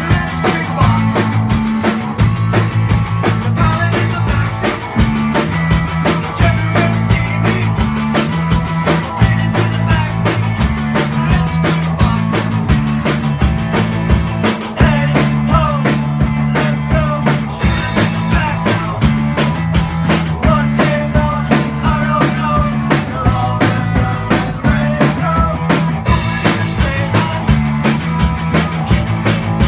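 A band playing live: a drum kit keeps a steady beat under a bass line and melody lines. The cymbals drop out for about ten seconds midway and come back near the end.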